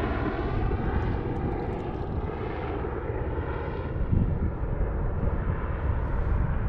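A steady engine drone, its tone a stack of even overtones, over a low uneven rumble of wind on the microphone.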